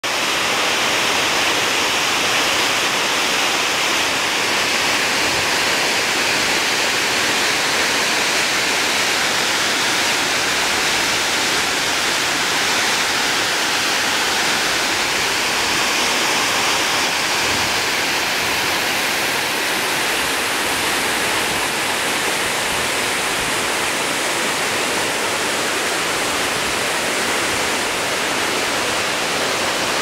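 Waterfall pouring into a rock pool: a steady, loud rush of falling water.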